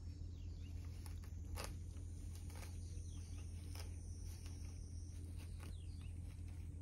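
Quiet outdoor ambience: a steady low rumble with scattered faint clicks and a few faint short chirps.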